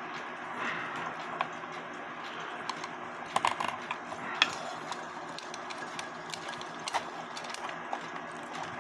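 Scattered small clicks and taps as cuckoo clock parts are handled: wires, lift arm and bellows being worked free of the movement. A steady low hum runs underneath.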